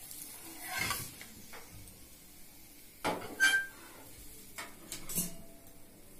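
A few scattered clinks and knocks of a metal spatula, pan and plate as a cooked dosa is moved from the pan onto a plate, the loudest about three and a half seconds in with a brief ring.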